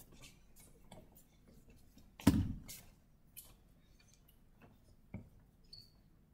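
Footsteps and shuffling of a group of children walking into line on a wooden hall floor: scattered light knocks, with one louder thump about two seconds in. A brief high squeak comes near the end.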